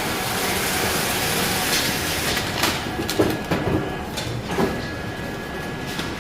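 Weighing machine for seasoned laver flakes running: a sharp click at the start, a rushing hiss for the first few seconds, then several knocks and rattles over a faint steady whine.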